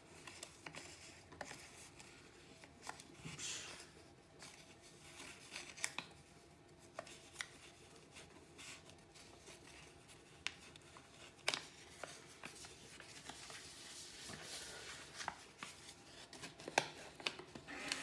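Faint rustling and scattered small clicks of things being handled, with a few sharper clicks now and then.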